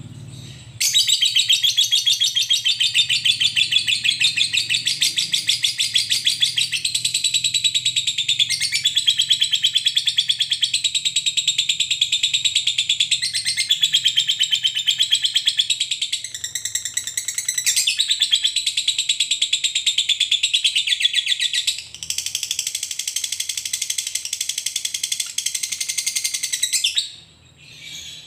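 Fischer's lovebird singing a long, unbroken 'ngekek': a fast, high chattering trill of rapidly repeated notes held for about 26 seconds, faltering briefly twice along the way. This long-duration trill is the song prized in competition ('fighter') lovebirds.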